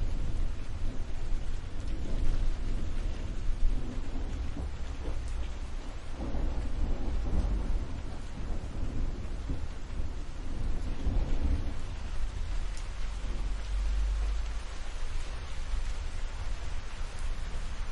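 Thunderstorm: steady rain with deep rolling thunder that swells about a third of the way in and again past the middle.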